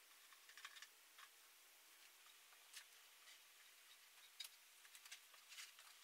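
Near silence with scattered faint clicks and light handling noises as a CPVC pipe end is daubed with solvent cement and pressed into a fitting by hand.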